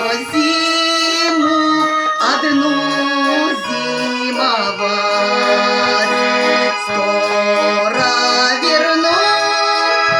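Garmon (Russian button accordion) playing a melody of held, changing notes over a regular pulse of bass and chord strokes.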